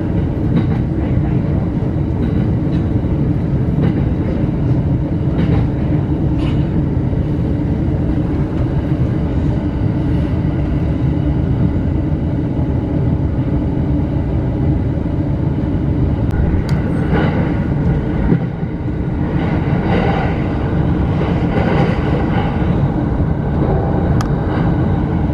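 Steady running noise of an electric commuter train heard from inside the carriage: a continuous low rumble of wheels on rails.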